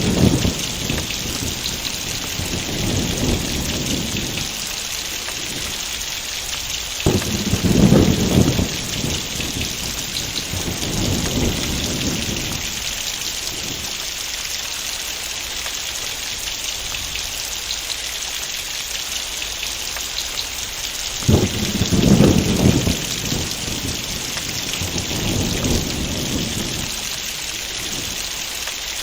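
Heavy rain pouring steadily, with thunder: a sharp crack rolling into a deep rumble about a quarter of the way in and again about three-quarters of the way in, each followed a few seconds later by a softer second roll. The tail of an earlier roll fades out at the start.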